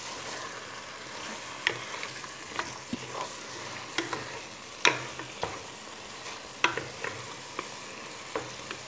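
Chicken, diced vegetables and tomato sauce sizzling as they fry in a metal pot, stirred with a wooden spoon that gives scattered sharp knocks and scrapes against the pot.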